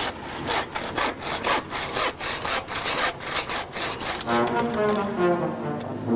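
Hand sawing: quick, even back-and-forth saw strokes that stop about four seconds in, after which background music with held notes comes in.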